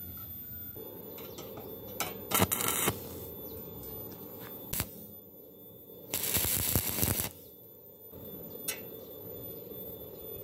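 Stick-welding arc from an E6013 2.6 mm electrode crackling in two short bursts, one about two seconds in and another about six seconds in, each lasting about a second: tack welds fixing a round bar to steel plate.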